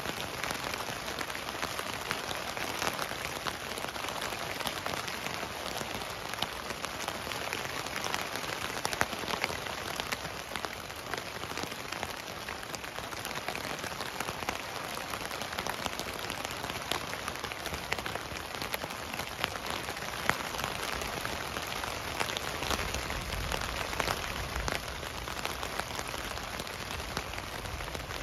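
Steady rain falling on a tent, heard from inside: an even hiss with many separate drop hits on the fabric. A low rumble comes in near the end.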